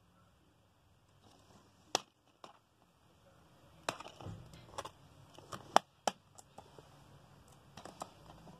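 Plastic DVD keep case being handled, opened and shut: a series of sharp plastic clicks and snaps with light rustling between, the loudest a little before 6 s in.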